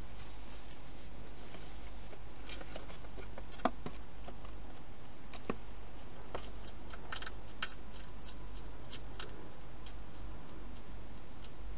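Wild hedgehog eating dry food inside a plastic feeding box: scattered sharp clicks and crunches, busiest from about six to nine seconds in. A louder click comes about four seconds in. A steady low hum runs underneath.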